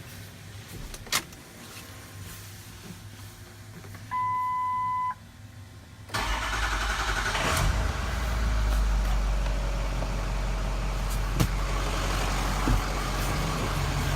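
Ford F-550's 6.0 L diesel V8 being started: a steady electronic beep lasts about a second, then about six seconds in the engine cranks, fires and settles into a steady idle.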